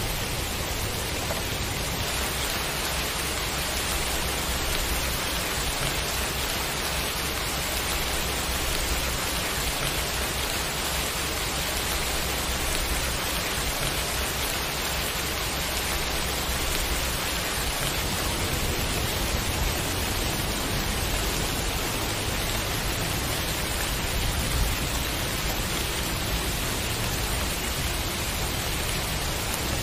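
Steady rain falling, an even hiss without let-up.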